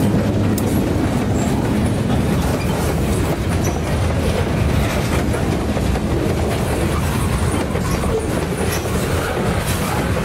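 Loaded covered hopper cars of a heavy cement train rolling past close by, their steel wheels clicking over the rail joints in a steady clickety-clack.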